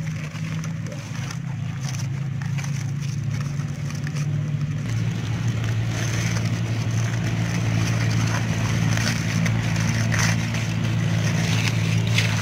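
Crinkled aluminium foil rustling and crackling as hands peel open a foil packet, over a steady low machine drone that drops a little in pitch about five seconds in.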